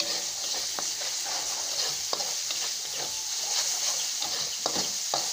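Spice paste sizzling steadily as it is stir-fried in hot oil in a metal pan. A metal spoon stirs it, scraping and tapping against the pan a few times.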